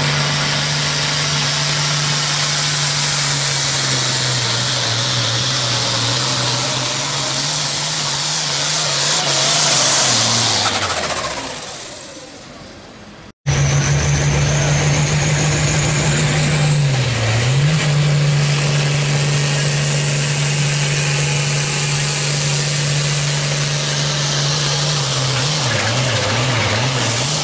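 Hot Farm class pulling tractor's diesel engine running flat out under load while it drags the sled, holding a steady pitch. The sound fades away about 11 seconds in, then breaks off. It comes back just as loud, dips briefly in pitch a few seconds later and wavers near the end.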